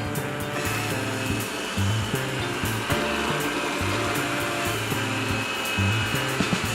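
Xiaowa robot vacuum running with a steady whirring hiss that comes in about half a second in, under background music with a repeating bass line.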